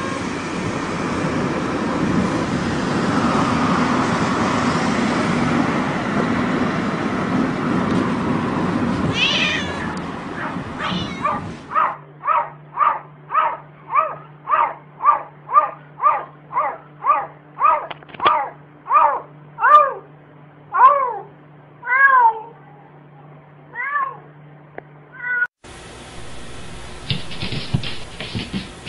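A cat meowing in a moving car over steady road noise. Then a cat gives a long run of short, repeated meows, about two a second and slowing towards the end. Near the end the sound cuts to a different stretch of indistinct noise.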